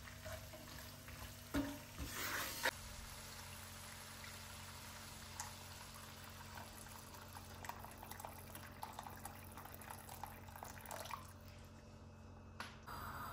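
For the first few seconds a wooden spoon stirs macaroni and minced meat sizzling in an enamelled cast-iron pan, knocking against it twice. Then hot water is poured into the pan, a steady pour with bubbling that stops shortly before the end.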